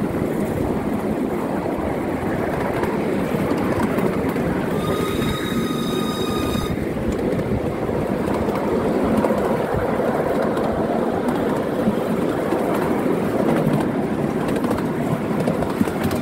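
Miniature railway train riding along the track behind a steam locomotive: a steady rumble of wheels on rails. About five seconds in comes a steady, high-pitched whistle that lasts about two seconds.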